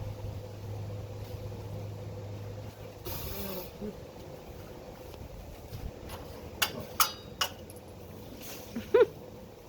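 A blower running steadily with a hum and a steady whine. The low hum drops away about three seconds in, and a few sharp clicks come near the end.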